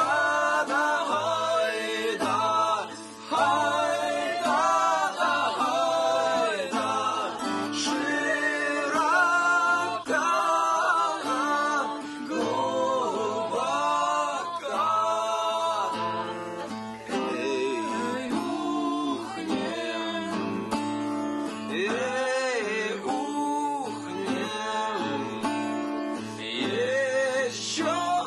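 A man singing a song to acoustic guitar accompaniment, in sung phrases over strummed chords.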